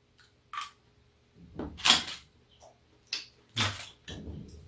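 Scattered clinks and knocks of chopsticks and skewers against a metal serving tray and bowl as grilled octopus is pulled off its skewers, the loudest knock about two seconds in.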